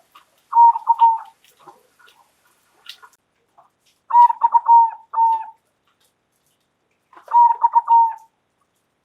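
Zebra dove (perkutut) cooing: three loud phrases of quick, rolling coo notes, each lasting about a second, a few seconds apart.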